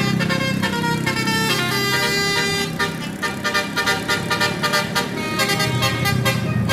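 A tour bus's telolet basuri musical air horn playing a melody of held, changing notes. A steady beat comes in about three seconds in.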